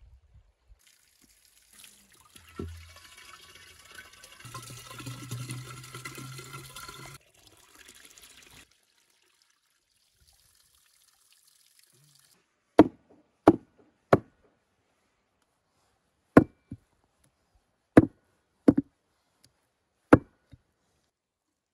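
Water splashing into a clay jug held under a clay pipe spout, with a dull knock as it starts. Later come seven sharp chops of a cleaver through raw beef on a wooden chopping block, three close together and then four more in irregular pairs.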